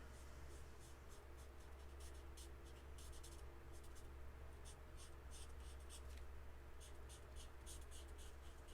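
Faint scratching of an alcohol marker's fine tip on cardstock in many quick, short colouring strokes, over a low steady hum.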